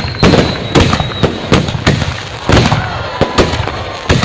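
Fireworks going off in a rapid, irregular string of sharp bangs and crackles, several a second. A thin high whistle runs through the first second.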